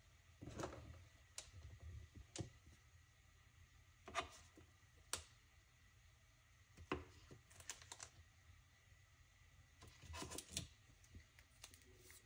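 Faint, scattered clicks and knocks of a wooden humidor being handled: its glass-topped lid opened and cigars picked out from inside.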